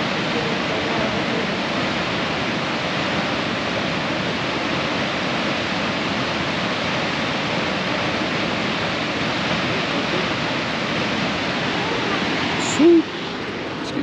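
Waterfall's steady rushing roar of falling water, even and unbroken. Near the end a single brief loud sound cuts in, and the rushing is quieter after it.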